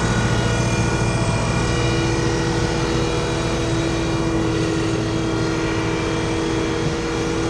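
A steady engine drone: a held hum with a few steady pitches over a low rumble, heard as unwanted background noise.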